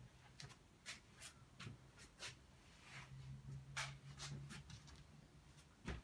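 Faint, irregular short scratching strokes, about a dozen, over a low steady hum.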